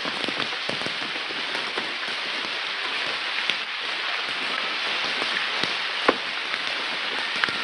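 Steady rain falling, with a few louder single drops hitting close by.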